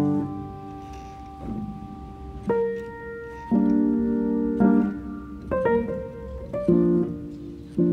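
Background piano music: slow notes and chords, a new one struck about once a second and left to fade.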